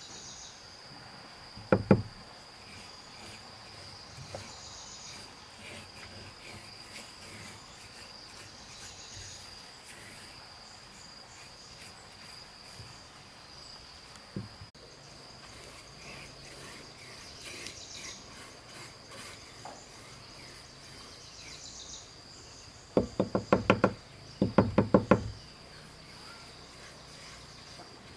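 Wood being struck during woodworking: a double knock about two seconds in, a single knock mid-way, then two quick runs of strikes near the end. Insects chirr in a steady high-pitched drone throughout.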